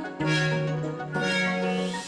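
Background music: sustained instrumental notes changing every second or so, with no speech.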